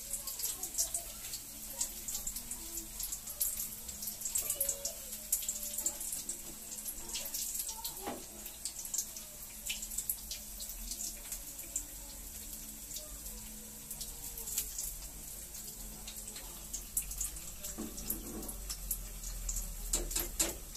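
Chicken pieces deep-frying in a small pan of hot oil, sizzling with a steady high hiss and constant crackling, with a few sharper pops.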